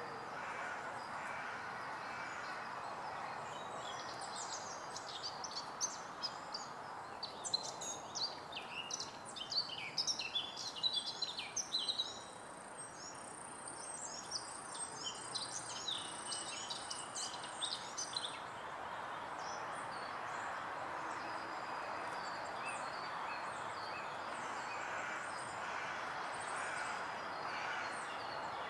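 Songbird singing in fast, varied bursts of high chirps and trills for about fourteen seconds, loudest around the middle, over a steady woodland background hiss.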